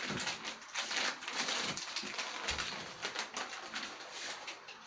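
Plastic snack-chip bag crinkling and rustling as it is handled and opened, an irregular dense crackle that thins out toward the end.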